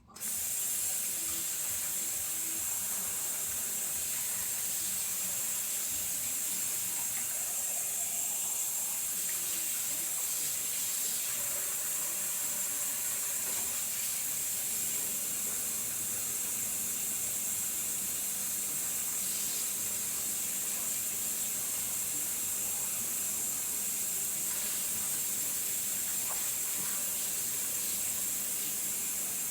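Water running steadily from a kitchen tap, starting abruptly and holding at one even level.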